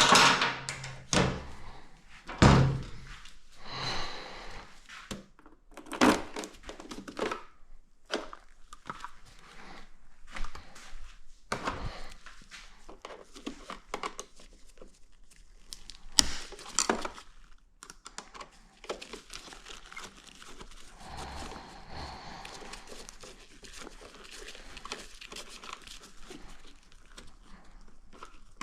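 Workshop clatter from motorcycle teardown: irregular knocks and thunks of tools and parts being handled, with rustling between. The loudest knocks come at the start, about two and a half seconds in, and about sixteen seconds in.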